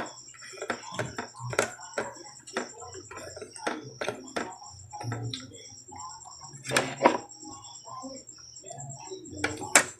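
Close-up eating sounds of a person chewing grilled barbecue meat, with irregular wet lip-smacks and clicks every half second or so, two of them louder near the end. Under it runs a steady, high-pitched, pulsing trill.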